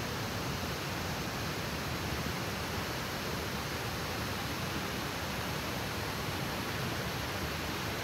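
Wide curtain waterfall pouring into its plunge pool: a steady, even rush of falling water.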